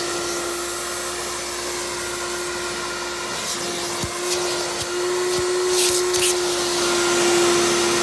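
Hoover Dial-A-Matic U6039 upright vacuum's clean-air motor running steadily in tool mode: a steady whine over the rush of air, stepping up slightly about halfway through. A few light clicks and knocks come in the middle.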